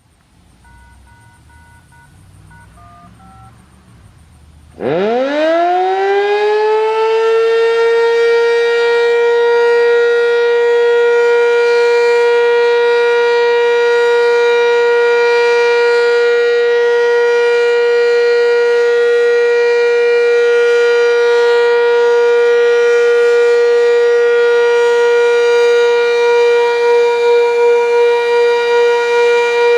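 Sentry 7V8-B outdoor warning siren starting up about five seconds in: its pitch winds up quickly from low and settles within about three seconds on a steady, very loud high tone with many overtones. Near the end the loudness starts to waver. Before it starts, a few faint short beeps.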